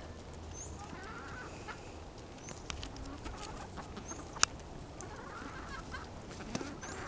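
Backyard hens clucking softly while they feed, with scattered sharp clicks; the loudest click comes about four and a half seconds in.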